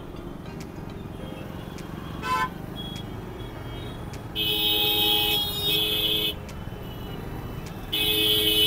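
Vehicle horns honking in dense city traffic: a short beep about two seconds in, then two loud horn blasts past the middle and another near the end, over the steady noise of engines and tyres.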